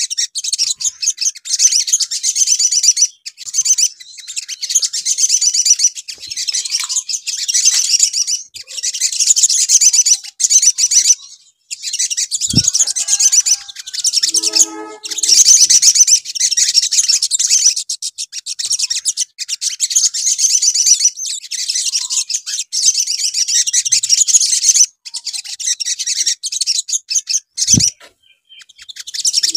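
Male olive-backed sunbirds singing: long, fast, high-pitched chattering trills in phrase after phrase, with short breaks between them.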